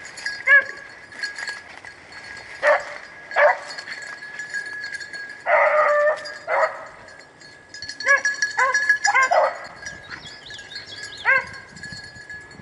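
Rabbit-hunting hounds barking in short clusters of barks, off and on, as they run a rabbit's trail through the brush.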